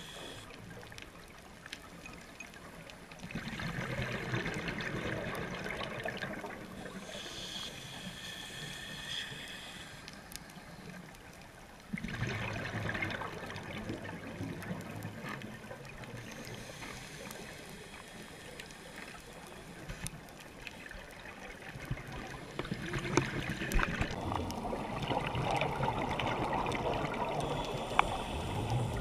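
Scuba diver breathing through a regulator underwater, about three breaths: a thin hissing inhale, then a longer burst of bubbling as the exhaled air vents, which starts abruptly. Scattered faint clicks run underneath.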